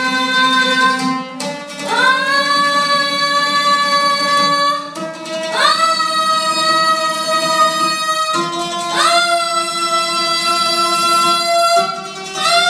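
A boy's voice singing long held vowel notes in a vocal range exercise, each note scooping up at its start and each a step higher than the one before, with a brief break between notes. An oud plays continuously underneath.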